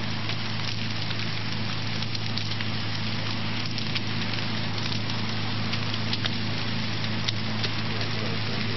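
Large test fire burning at a chairlift's haul rope: a steady hiss scattered with sharp crackles, over a steady low hum.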